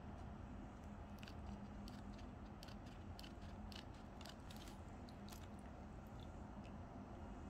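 Scissors snipping through a plastic seasoning sachet: a run of short, sharp snips and crinkles for about four seconds, which then stop. A steady low hum runs underneath.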